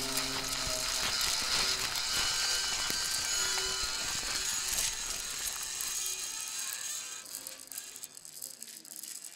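Dense mechanical rattling and clicking with a few held tones mixed in, fading away over the last couple of seconds.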